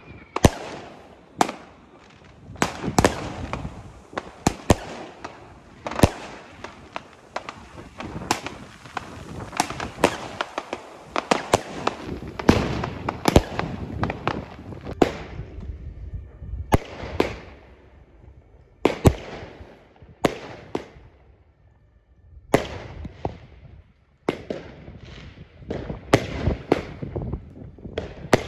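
Weco Bloody Mary, a 12-shot 20 mm consumer firework battery (cake), firing: a long run of sharp bangs and crackles as its shots go up and burst. The bangs let up briefly about two-thirds of the way through, then come thick again near the end.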